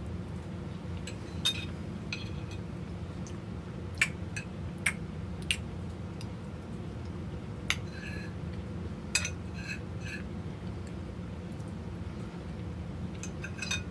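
A metal fork clinking and tapping against a plate while cake is eaten: about a dozen short, sharp clinks at irregular intervals, some with a brief ring. A steady low hum runs underneath.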